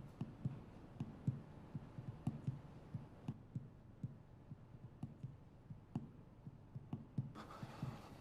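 Footsteps of hard-soled shoes on a hard floor: a quick, irregular run of low thuds with a faint click at each step.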